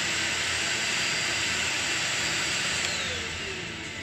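Deerma DX700 handheld vacuum cleaner's motor running with a steady airy whirr, then switched off about three seconds in, its whine falling in pitch as it spins down.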